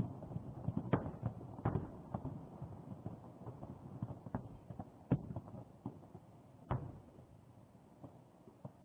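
Popocatépetl erupting: irregular sharp cracks and knocks over a low rumble, coming thick at first and thinning out toward the end.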